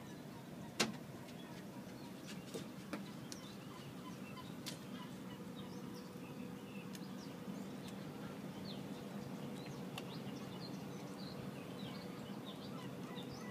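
Quiet outdoor ambience: a steady low hum with faint, scattered bird chirps, and one sharp click about a second in.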